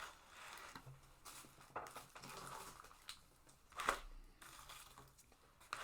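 Quiet crinkling and rustling of takeout food packaging being handled, with scattered small clicks and a sharper click about four seconds in.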